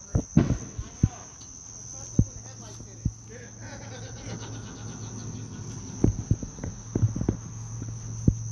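Insects chirring in one steady high-pitched drone, with several short low thumps scattered through, most of them a little after the middle.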